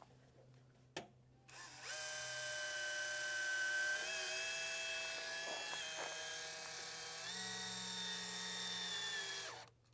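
Cordless drill with a No. 1 Phillips bit driving a small fine-thread, cutter-tip screw through a shower base's flange: a steady motor whine starting about a second and a half in, stepping up in pitch a few times as the screw goes in, and stopping just before the end.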